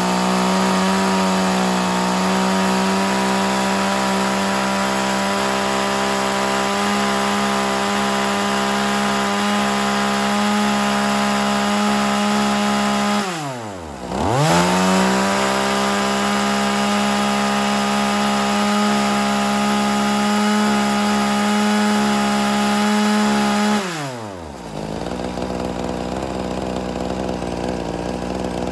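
Hitachi 33 cc two-stroke chainsaw running at full throttle with its chain spinning free, a steady high engine note. About halfway through the throttle is let off for a moment, the pitch dropping, then opened straight back up; for the last few seconds it falls back to idle.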